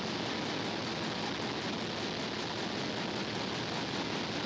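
Steady engine-room background noise: an even, hissing rush with no distinct beats, knocks or tones.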